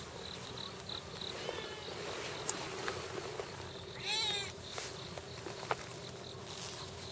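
A tabby-and-white cat meows once, a short call that rises and falls in pitch about four seconds in.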